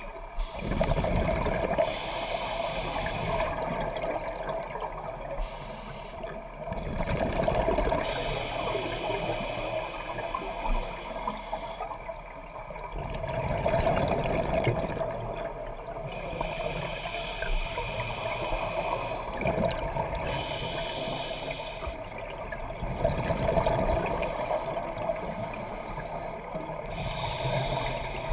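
Scuba diver's regulator breathing underwater: a hiss on each inhalation and a rush of gurgling exhaled bubbles, in slow cycles about every six seconds.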